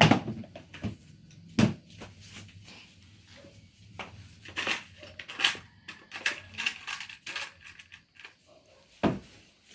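Scattered clicks and light knocks of small parts and tools being handled on a workbench, with sharper knocks at the start and about a second and a half in, and a cluster of clicks midway.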